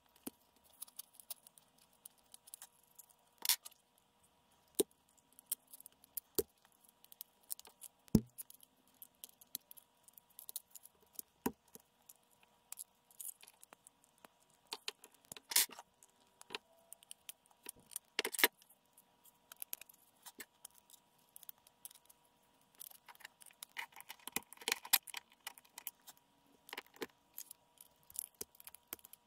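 Irregular small clicks, taps and scrapes of a metal pin and tools against a 3D-printed plastic pistol frame as pins are fitted and support material is worked off, played at four times speed so they come quickly. A faint steady hum runs underneath.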